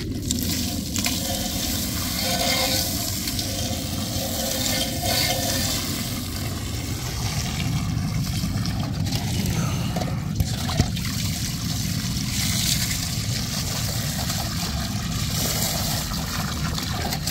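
Water from a hose pouring steadily into a basin of muddy loess water, splashing and churning it to foam. Two light knocks come about ten seconds in.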